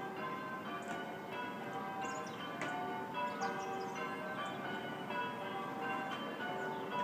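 Church bells ringing continuously, many notes at different pitches struck one after another and overlapping as they ring on. Songbirds chirp and sing over the top in short high bursts.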